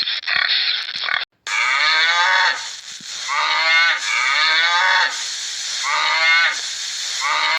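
Cattle mooing: about five calls in quick succession, each one dipping in pitch. The calls follow a short scraping noise that cuts off about a second in.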